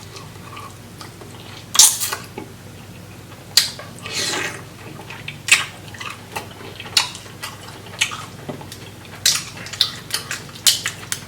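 Close-miked eating sounds from chewing a large seasoned shrimp: irregular wet mouth smacks and clicks, several in quick succession near the end.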